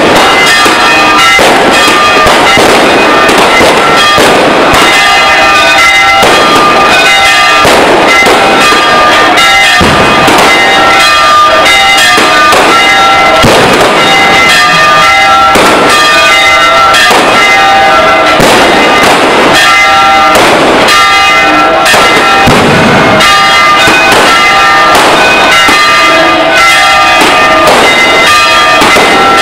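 Fireworks bursting overhead in a continuous run of bangs and crackles, very loud, while church bells ring steadily underneath.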